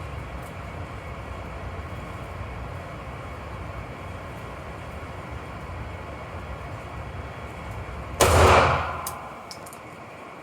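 A single loud handgun shot about eight seconds in, with a brief ring-out, over a steady low background noise.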